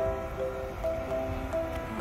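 Background music: a simple melody of short, held notes one after another.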